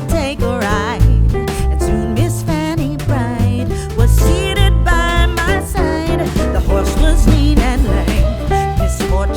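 Background music: an upbeat song with a singing voice over bass and a steady beat.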